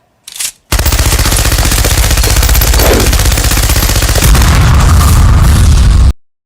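A loud, rapid chattering noise over a heavy low rumble. It starts just under a second in and cuts off suddenly near the end.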